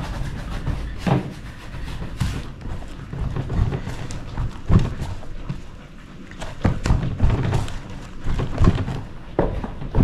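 Dough being kneaded by hand in a plastic bowl: irregular dull thumps, roughly once a second, as the dough is pushed and pressed into the bowl.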